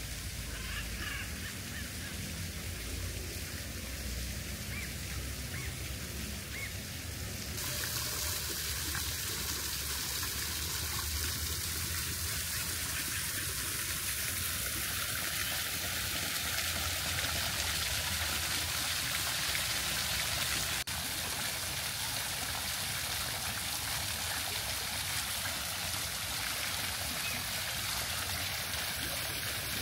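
Water running steadily, a continuous splashing trickle that grows brighter and a little louder about eight seconds in.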